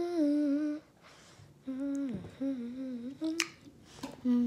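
A girl humming a tune in a few held, gently wavering notes, with a pause of about a second early on. A short sharp click comes just past the middle.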